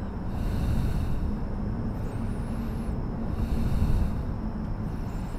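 Low rumble of road traffic going by, swelling twice as vehicles pass.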